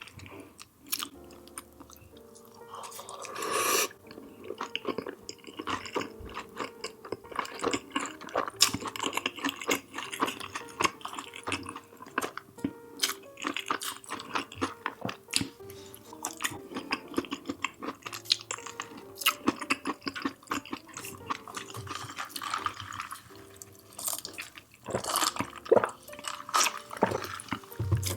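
Close-miked chewing and wet mouth sounds of eating chicken biryani, naan and curry, with many small clicks and smacks, over quiet background music.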